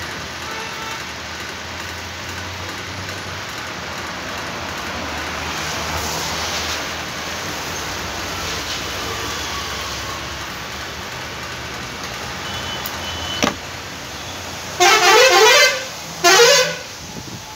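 Steady background street noise with passing traffic. Near the end a vehicle horn honks twice, loud: first for about a second, then a shorter toot, with a sharp click just before.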